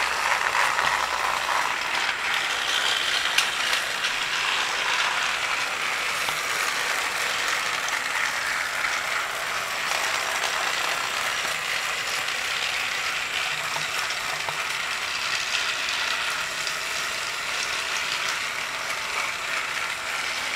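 Battery-powered Thomas & Friends TrackMaster toy engines running on plastic track: the steady whirring rattle of their small gear motors and wheels.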